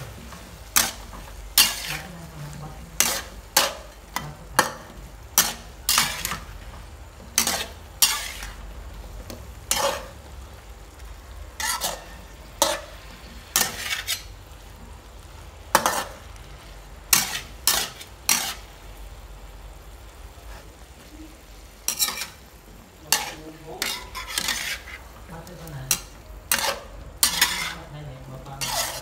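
Metal spatula scraping and knocking against a steel wok as okra and beef are stir-fried, over a steady sizzle. The strokes come irregularly, one or two a second, with a short lull about two-thirds of the way through.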